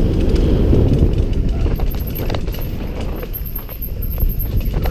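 Wind buffeting a helmet-mounted camera and mountain bike tyres rolling over a dirt trail during a fast descent, with short rattles and clicks from the bike over bumps.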